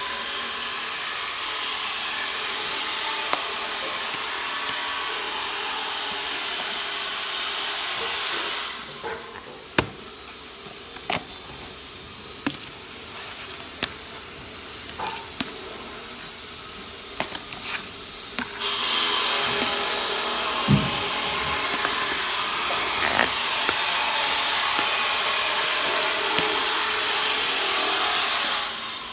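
Steady loud hissing noise that stops suddenly about eight seconds in, gives way to a quieter stretch of scattered clicks and taps, and comes back about nineteen seconds in until just before the end.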